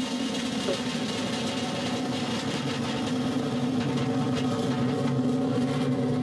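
Vega-C rocket's P120C solid-fuel first-stage motor at full thrust just after liftoff: a steady rumbling roar with crackle, growing slightly louder.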